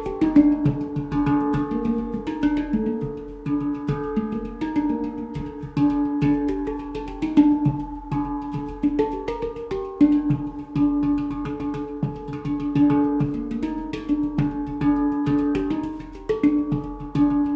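Golden Sound handpan in a Pygmy scale played by hand: a fast stream of finger strikes, with the struck notes ringing on and overlapping. Light percussive taps sit between the ringing notes.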